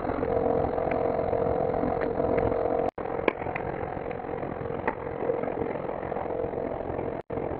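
A steady rumbling drone with a constant hum, broken twice by brief dropouts to silence, about three seconds in and near the end.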